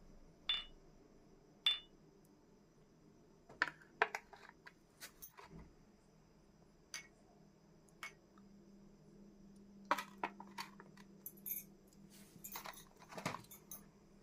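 Kitchen utensils clinking and tapping: two short, ringing clinks near the start, then scattered light knocks and clicks.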